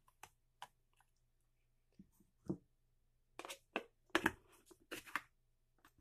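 Scattered light clicks and taps as a stainless steel mesh filter is set into a glass cold brew pitcher and the lid is fitted on. A quicker run of clicks in the second half comes from the lid being turned until it locks.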